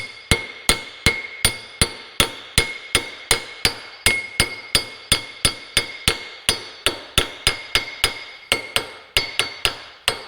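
Hammer striking steel in a steady rhythm, about three blows a second, each with a bright metallic ring, driving a snug-fitting new end cap into a hydraulic cylinder.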